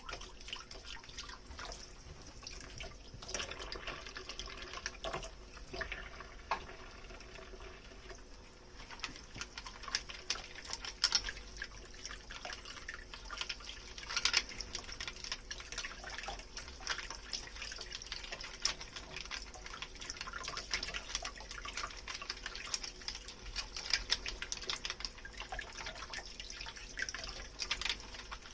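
Kitchen tap running into a sink while dishes are washed, with many light clinks and knocks of the dishes. The water gets louder about a third of the way in.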